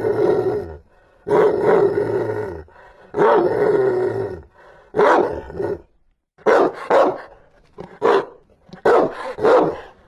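Rottweiler barking fiercely. Three long, drawn-out growling barks in the first half give way to shorter, quicker barks in the second half.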